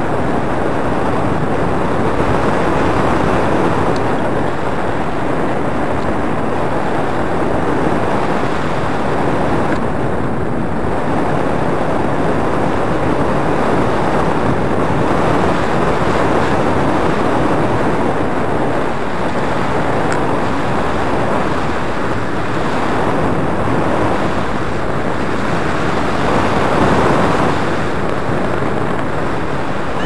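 Wind rushing over the microphone of a paraglider's camera in flight: a loud, steady rush of airflow that swells and eases a little from time to time.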